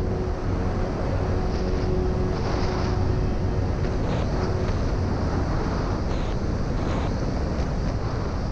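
Wind rushing over the microphone of a skier's camera during a downhill run, with the hiss and scrape of skis on snow. The last sustained tones of background music fade out about halfway through.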